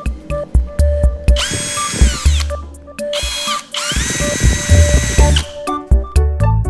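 Cordless drill driving a bit into a bicycle tyre in three short runs, its motor whine falling away each time the trigger is released. Background music with a steady beat plays throughout and is left alone near the end.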